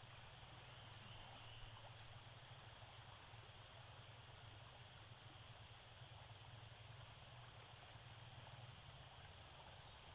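Insects droning steadily at one high pitch, with a faint low hum beneath.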